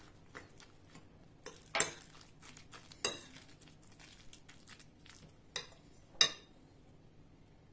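Metal spoon stirring wet grated vegetable batter in a porcelain bowl: soft scraping, with a few sharp clinks of the spoon against the bowl, the loudest about two, three and six seconds in.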